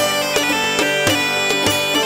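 Bagpipes playing a tune over a steady drone, with regular drum strokes.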